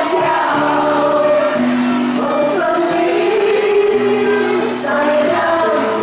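Small mixed vocal group singing a song in harmony through microphones, over low held accompaniment notes that change about once a second, likely from a keyboard.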